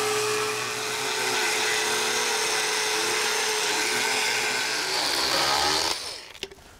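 Motorized equine dental float running steadily in a horse's mouth with a high whine, grinding down the teeth; it stops just before the end. This is the smoothing of a minor dental overgrowth, taking down a tooth that sits out of line with the rest.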